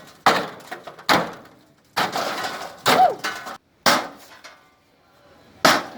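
Heavy blows smashing into an old grill, six hard impacts about a second apart with a pause before the last, some leaving a brief metallic ring.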